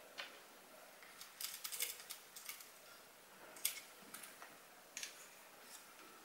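Faint clicks and rustles of a Sony mirrorless camera being handled as its nylon shoulder strap is threaded onto it: a quick run of small ticks about a second and a half in, then single sharp clicks near four and five seconds.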